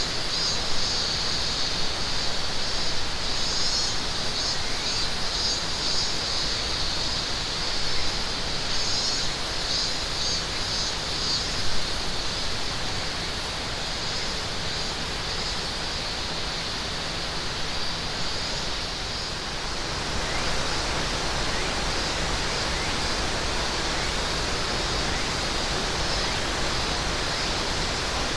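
Steady rushing of a mountain river, with cicadas calling in high, pulsing trills over it that fade out about halfway through.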